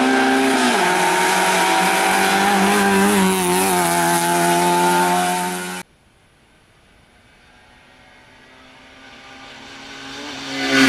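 Race car engine running hard at high revs, its pitch climbing and stepping down twice, about a second in and near four seconds, as it changes up through the gears. It cuts off abruptly near the middle. Then another engine is heard faint and distant, growing steadily louder as the car approaches.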